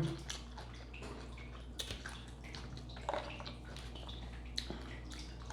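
Close-miked chewing of a salad: soft, wet mouth clicks and squishes, with a few louder clicks.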